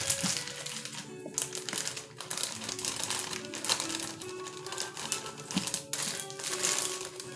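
Plastic bag crinkling and rustling in repeated short bursts as it is handled, over background music with held notes.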